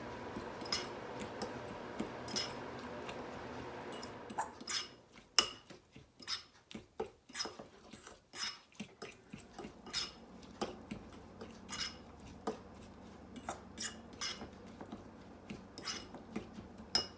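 A spoon clinking and scraping against a small ceramic bowl while stirring a thick herb, garlic and oil sauce, in irregular light taps about two a second. A steady hum underneath stops about four seconds in.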